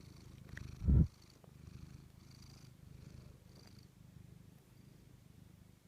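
Tabby cat purring, a steady low pulsing rumble, with one dull thump about a second in.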